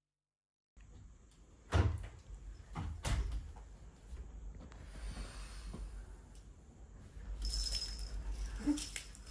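A few sharp knocks, the loudest two about a second apart, then scattered light clicks and knocks over a low rumble of handling noise.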